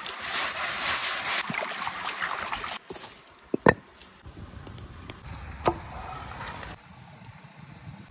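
Running stream water and the gritty scrape of sand being rubbed over a flat stone by hand. After about three seconds, a stone slab is set down on rocks with two sharp knocks close together, and there is another knock about two seconds later.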